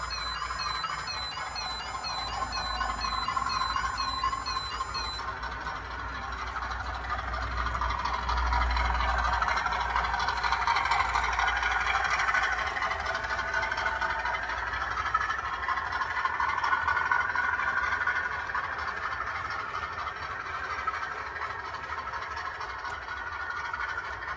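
OO gauge model diesel train running past on the layout, a steady mechanical rattle and hum of motor and wheels on track that swells as it passes and eases off near the end.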